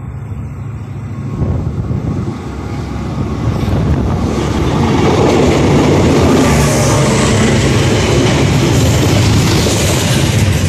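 Diesel freight train passing close by, led by KiwiRail DL-class diesel-electric locomotives: the engines grow louder over the first few seconds as they draw level about four seconds in, then the wagons keep rolling past at full volume.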